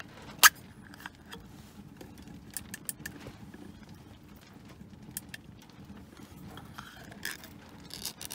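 Easy-open pull-tab lid on a steel food can being opened by hand: scattered sharp metal clicks and a scrape as the ring is lifted and the lid is peeled off. The loudest click comes about half a second in.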